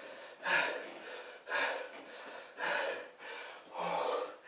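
A man breathing hard from exertion during a set of split lunges: four loud, gasping breaths about a second apart, with quieter breathing in between.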